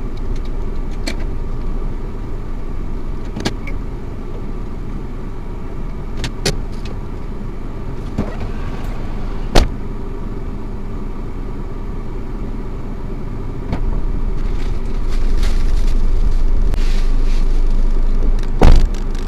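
A car running, its engine and road noise steady and low, with scattered clicks and a sharp knock about ten seconds in. The noise gets louder about fourteen seconds in, and a loud thump comes near the end.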